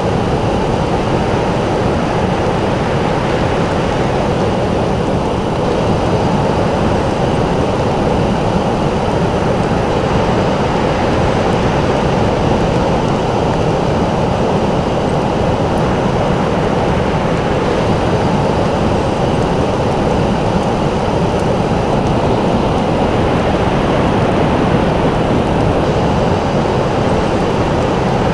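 Ocean surf breaking on a sandy beach: a loud, steady roar of waves with no single crash standing out.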